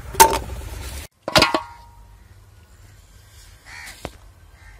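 Two sharp knocks, the second followed by a brief metallic ring, then a crow cawing once near the end.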